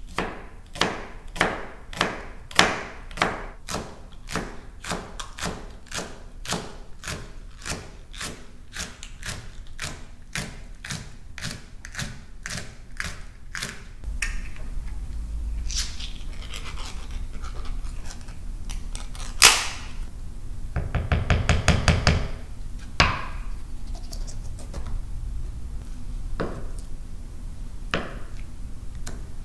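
A kitchen knife chopping on a cutting board in a steady rhythm, about two and a half strokes a second. About halfway through the chopping stops. Quieter kitchen handling sounds follow, with a few sharp clicks and a brief run of rapid ticking.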